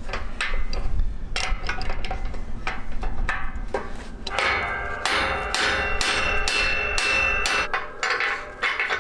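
Irregular metal-on-metal strikes and clanks of hand tools on steel, with a ringing tone through the middle, as the bolts on a vertical tillage rolling-basket bracket are worked loose.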